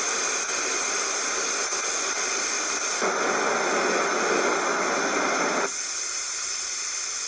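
Sleepbox white noise machine playing steady static-like noise sounds. It switches abruptly to a different, fuller noise about three seconds in, then to another about two and a half seconds later, as its sound settings are stepped through one by one.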